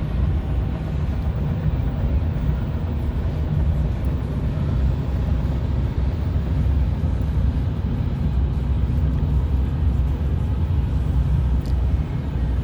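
Steady low rumble of vehicle engines and traffic, with no horn blast.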